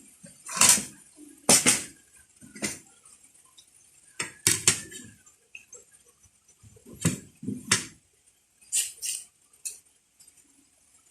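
Eating sounds during a meal: about ten sharp, irregular clicks and crunches in uneven clusters, with quiet gaps between.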